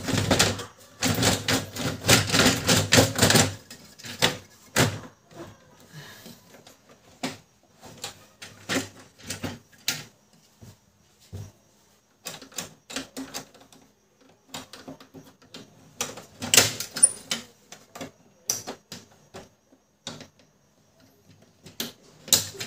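Plastic clicks, knocks and rattles as the drum-and-toner cartridge assembly of a Brother DCP-L2540DW laser printer is slid back in and seated by hand. The clicking comes in irregular clusters, densest in the first few seconds and again in the middle.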